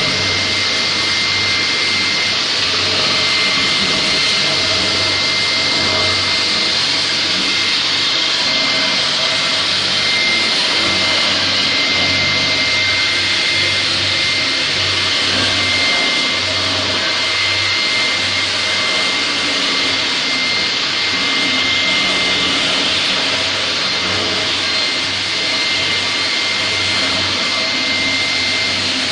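Linax K-30ENV electric concrete floor grinder running steadily, its rotating grinding head abrading a concrete floor, with its dust extractor running alongside; a constant high whine sits over the even grinding noise.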